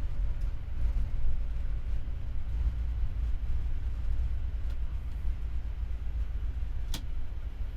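Steady low rumble inside a Boeing 787-9 cockpit as the airliner decelerates along the runway after touchdown. A single sharp click comes about seven seconds in.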